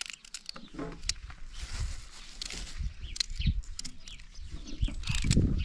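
Raw carrots being sliced with a knife by hand: a scattered string of short crisp snaps and clicks, with a rustle of plastic and a low rumble underneath.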